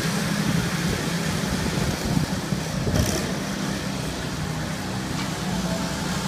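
Go-kart engines running steadily as several karts circle the track, with a brief knock about halfway through.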